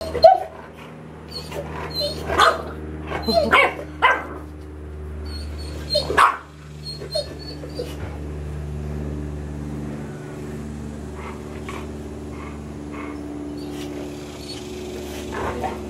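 Bulldog puppy giving a series of short, high barks and yips, most of them in the first six seconds, with a few fainter ones later, over a steady low hum.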